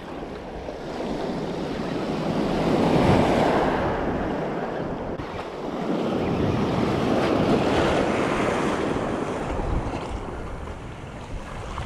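Small surf waves breaking and washing up over a pebbly shore, swelling about three seconds in and again around seven seconds, with wind on the microphone.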